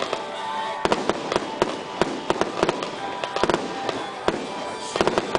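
Aerial fireworks going off: a fast run of sharp bangs and pops, several a second, over a continuous crackle from glittering shell bursts.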